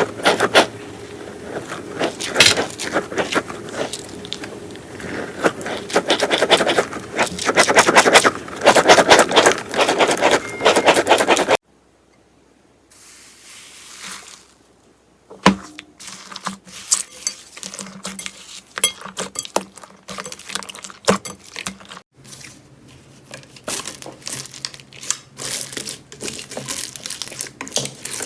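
Slime being squeezed and poked by hand close to the microphone: dense runs of sticky clicks and crackling pops. The sound cuts out to near silence a little before halfway, then quieter clicking returns.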